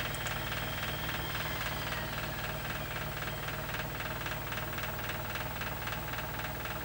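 Steady low mechanical hum with a fast, even pulsing, from running machinery.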